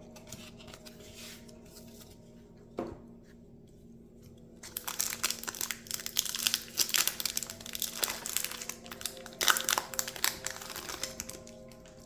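A trading-card booster pack's plastic wrapper being crinkled and torn open: soft handling with a single tap about three seconds in, then dense crackling rustle from about five seconds in that fades near the end.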